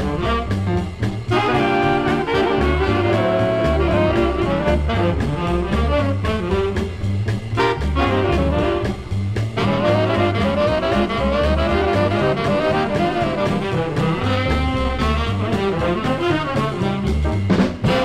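Swing jazz played from a vinyl LP: a harmonized saxophone section with trumpet and trombone over walking bass and drums, with almost no surface noise from the needle.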